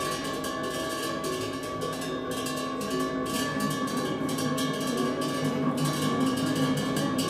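Live improvised ensemble music with percussion: busy, irregular rattling clicks over several held ringing tones that keep going throughout.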